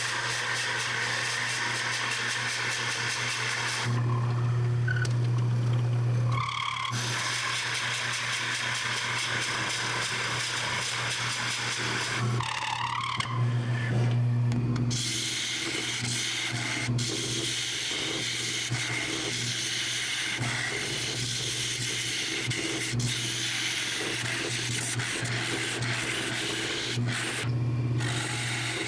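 Jet wood lathe running with a steady motor hum while a drill bit in a tailstock chuck bores into the end of the spinning wood blank, and later a carbide tool cuts inside the hollow. The hiss of cutting drops out a few times, about four seconds in, midway and near the end, leaving only the motor hum.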